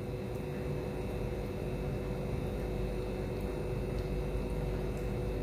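Steady background hum with two faint held tones over a low rumble, and a few faint ticks.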